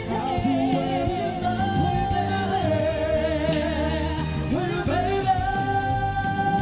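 A live pop ballad duet: a female singer holds a long note with vibrato over slow band accompaniment. A little past two-thirds through, a voice slides up into another long, steady high note.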